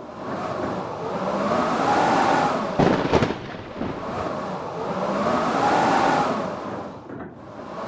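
Strong wind gusting in waves, swelling and fading about every four seconds with a howl that rises and falls in pitch. A sharp crack about three seconds in.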